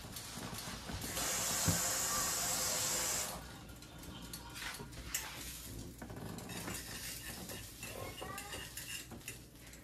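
Kitchen sink tap running for about two seconds, starting about a second in, then shut off, followed by light clicks and clatter of kitchen utensils.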